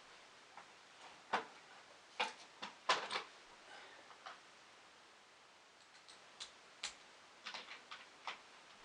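Irregular light clicks and taps of small parts being handled during assembly, a cluster about two to three seconds in and a few more near the end.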